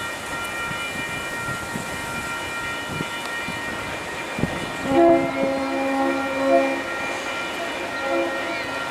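Diesel freight locomotive sounding its horn as the loaded train passes through a road crossing: one long blast of about two seconds halfway through, then a short blast near the end. Beneath it runs the steady rumble of the train, with occasional wheel knocks.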